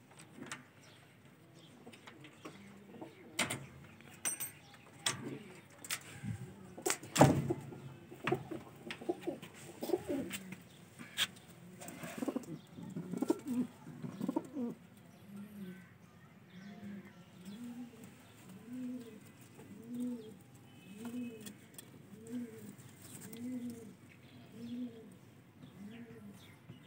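Domestic pigeons cooing, a steady run of rise-and-fall coos about one a second through the second half. In the first half there are clicks and knocks from the loft door's metal hasp being worked, with the loudest knock about seven seconds in.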